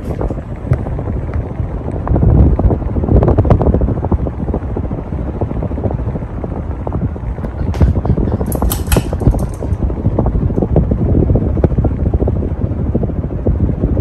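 Ceiling fan running, its downdraft buffeting the microphone as a loud, gusty rumble, with a brief higher rustle about nine seconds in.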